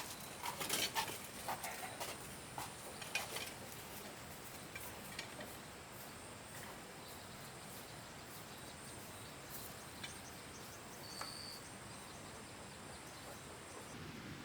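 Forest ambience with a thin, steady high-pitched insect drone. A cluster of sharp snaps and knocks comes in the first few seconds, and a single short high chirp comes near the end.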